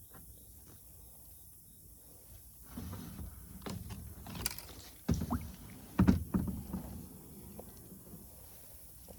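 Kayak paddling: paddle strokes splashing in the water. A few sharp knocks start a few seconds in and are loudest about five and six seconds in.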